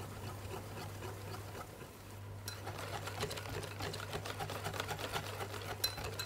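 Wire balloon whisk beating cake batter in a glass bowl, its wires ticking rapidly against the glass, with a brief lull about two seconds in. This is the melted butter and rice-bran oil being mixed into the batter. A steady low hum runs underneath.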